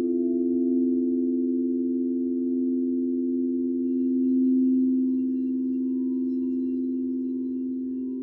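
Several crystal singing bowls ringing together in long, overlapping tones with a slow wavering beat between them. Another bowl is struck about four seconds in, adding a higher ring.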